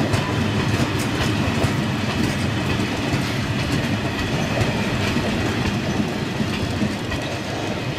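Loaded open freight wagons of a long coal-briquette train rolling past, their wheels clattering over the rail joints in a steady clickety-clack.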